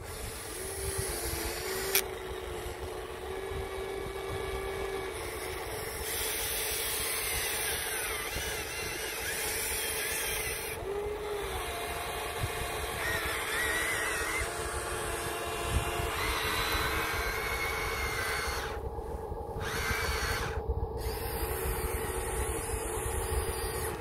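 Huina remote-control excavator's small electric motors whining as it digs, the whine shifting in pitch as the boom, bucket and tracks move, over a steady hum.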